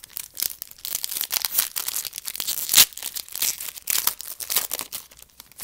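Crinkling and tearing of a foil trading-card pack wrapper being handled and ripped open, a dense run of sharp crackles with one louder rip near the middle.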